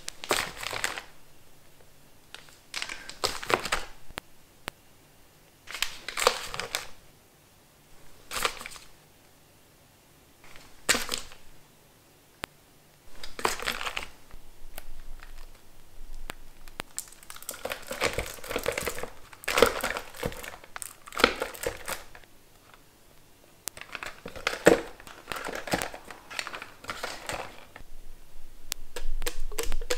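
Sheet face-mask sachets crinkling as a hand riffles through them in a plastic storage bin. The crinkles come in short separate bursts at first, then run on almost continuously through the second half.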